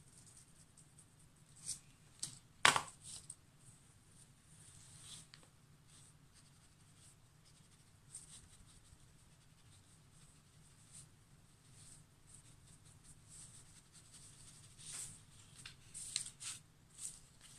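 Faint scratching and dabbing of a paintbrush and rag working paint onto a wooden board, with scattered small taps. There is one sharp click about three seconds in and a cluster of taps near the end.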